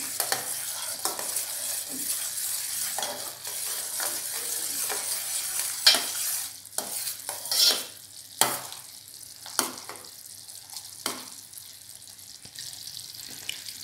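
Syrup of country sugar and ghee bubbling and sizzling in a steel pan as it cooks down to thicken. A metal spoon stirs it, clinking and scraping against the pan several times.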